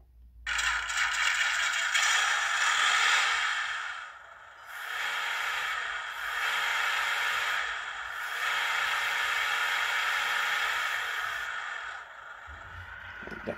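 Simulated engine sound (the second of two sound options) from the Orlandoo D4L sound module, played through the car's tiny onboard speaker. It is thin and hissy with almost no low end. It starts about half a second in, dips briefly around four seconds, then runs on and fades near the end.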